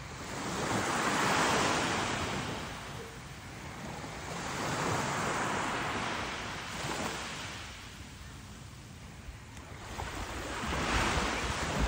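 Small waves breaking and washing up onto a sandy beach, the surf swelling and fading three times.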